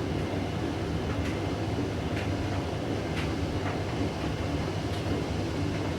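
Hoover washing machine on its final spin, the drum turning with a steady low rumble and a faint swish roughly once a second. It is struggling to reach spin speed.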